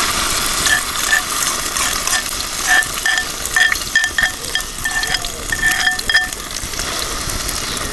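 Beaten egg and sliced sausage frying in a little hot oil in a pan, sizzling steadily, as the rim of a clay bowl scrapes against the pan. A run of short high squeaks comes from about one to six seconds in.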